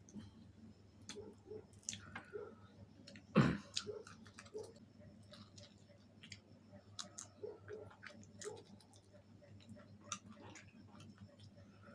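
Close-miked chewing of fried chicken wings: irregular wet mouth clicks and smacks, with one louder knock about three and a half seconds in.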